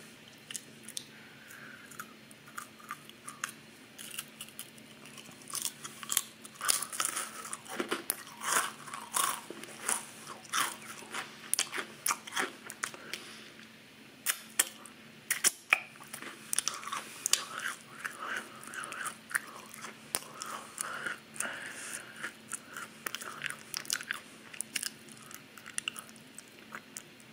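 Crackers spread with cream cheese being bitten and chewed right at the microphone: a long run of crisp crunches and mouth clicks, sparse for the first few seconds, then dense.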